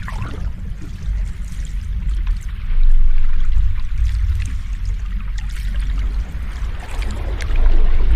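Ocean waves surging and washing in, a steady low rumbling wash that swells louder about three seconds in and again near the end.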